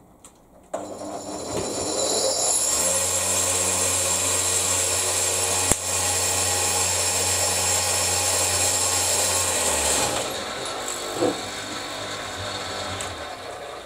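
Homemade 4x36 belt sander started for its first test run: it spins up and runs steadily with a motor hum and a high whir of belt and rollers, then drops to a quieter run-down about ten seconds in. A sharp click sounds near the middle. The belt runs with no tracking mechanism or tension spring fitted yet.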